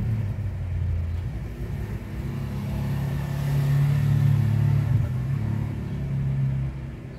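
Low rumble of a motor vehicle that swells to its loudest about halfway through and then eases off.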